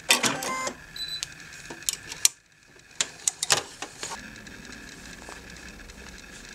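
Brother NV2600 embroidery machine making its last rapid stitches, then a short high beep about a second in. A few sharp clicks and taps follow, then a faint steady hum.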